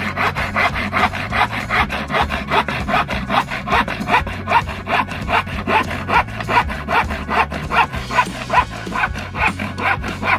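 An old handsaw cutting across a wooden board, in quick, even back-and-forth strokes, each one a short rasp of the teeth through the wood.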